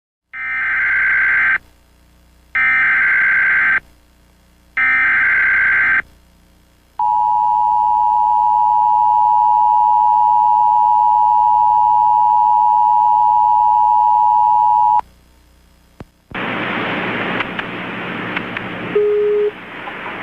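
Emergency Alert System SAME header: three bursts of shrill digital data tones, about a second each. Then the EAS two-tone attention signal sounds steadily for about eight seconds and cuts off. A couple of seconds later a loud hiss like radio static comes in, with a short low beep near the end.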